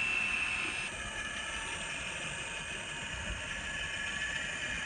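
Diesel prime mover sound from an N scale locomotive's DCC sound decoder, idling steadily through the model's small speaker. It sounds like maybe an ALCO RS3. A high steady whine cuts off about a second in.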